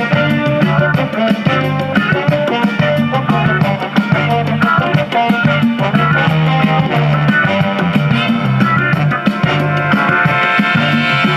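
Music playing from a tape in the Fisher PH-480 boombox's cassette deck: a band track with drums and a steady bass line. The deck is running on new drive belts, its tape speed just set against a 440 Hz test tone.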